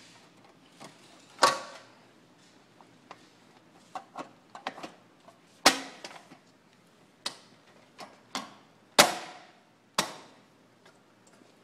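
Hard clicks and knocks of cubicle panel hardware being handled and fitted: a dozen or so irregular taps, the loudest about a second and a half in, halfway through, and twice near the end.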